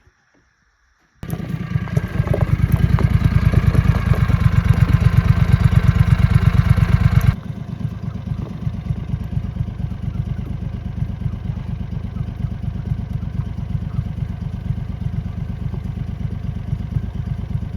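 A utility vehicle's engine running with a fast, even firing pulse. It comes in suddenly about a second in, runs louder until about seven seconds in, then drops abruptly to a steady idle.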